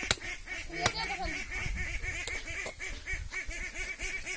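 Heavy knife chopping goat meat on a wooden log block: two sharp chops about three-quarters of a second apart. Behind them an animal calls rapidly and evenly, about five times a second.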